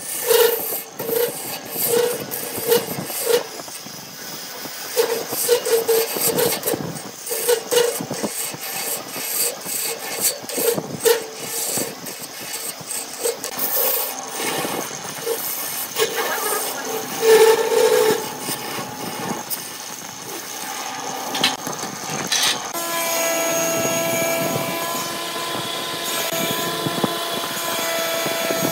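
Woodturning tools scraping and sanding the inside of a wooden cup spinning on a lathe: a rough rasping scrape that pulses about twice a second. About 22 seconds in, a steadier machine hum with several tones takes over as a bit in a drill chuck bores into the cup.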